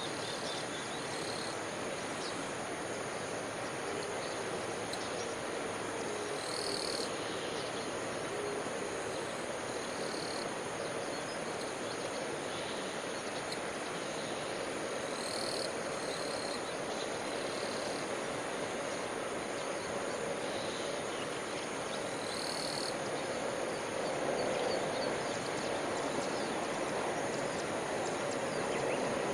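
Frogs croaking over a steady outdoor background, with short high calls recurring every several seconds.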